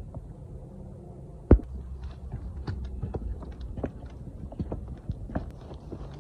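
Hiker's footsteps crunching on a rocky trail strewn with dry fallen leaves, with one heavy thump about a second and a half in.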